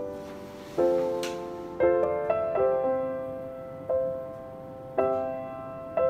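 Background music: a gentle solo piano piece, with notes and chords struck about once a second and each fading away before the next.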